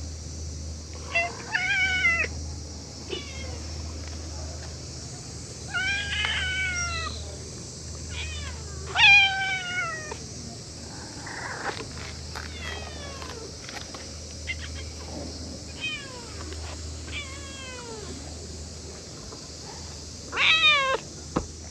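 Stray cats meowing repeatedly: many short meows throughout, the loudest about two seconds in, around six and nine seconds in, and near the end.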